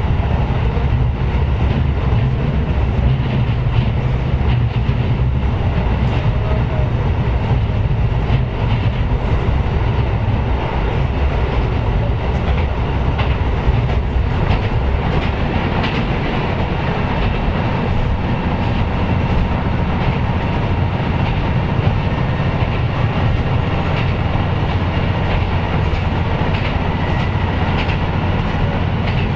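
KiHa 125 diesel railcar running along the line: a steady engine drone with wheel-on-rail noise and the occasional clack of rail joints.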